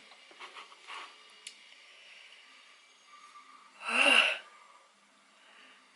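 A woman's single loud, breathy exhale, like a heavy sigh, about four seconds in, with quiet breathing and faint small clicks around it; she is reeling from a mouth burning with spicy food.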